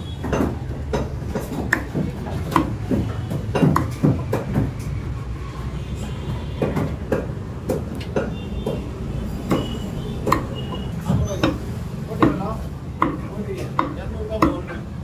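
Meat cleaver chopping chicken on a wooden log chopping block: sharp chops at an uneven pace, about one or two a second.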